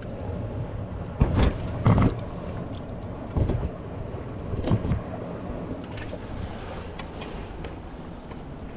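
Wind buffeting the microphone over a steady wash of sea waves, with four short, louder gusts in the first half.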